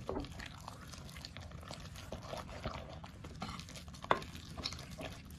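Cooked rice being stirred with raw egg in a bowl: soft, sticky squelching with small clicks of the utensil, and one sharper knock about four seconds in.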